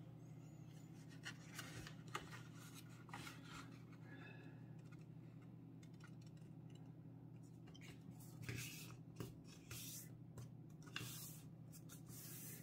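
Faint, intermittent rustling and rubbing of a sheet of paper as it is folded over and fingers score the crease flat, over a faint steady hum.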